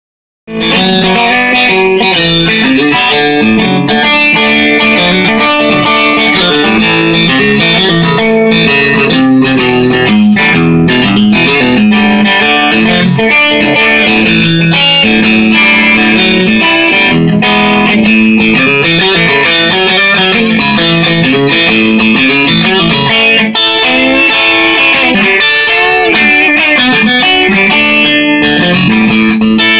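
Custom-built offset-body Telecaster-style electric guitar with a single pickup, played with a pick: a continuous run of picked single notes and chords, starting about half a second in.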